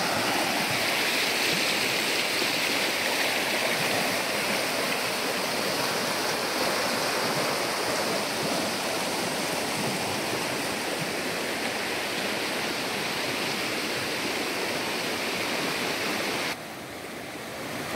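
Steady rushing of the Au Train River's rapids, white water pouring over rocks, dropping suddenly to a quieter rush near the end.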